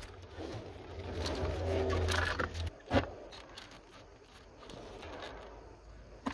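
Handling of a plastic automotive fuse box and its wiring harnesses: a sharp knock about three seconds in and another at the very end, with faint rustling of wires. In the first half a low hum swells and fades.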